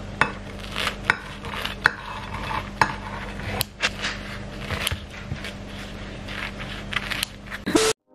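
Kitchen scissors snipping through a toasted ham-and-cheese tortilla, a string of irregular sharp clicks and crunches with light knocks against a plate, over a steady low hum.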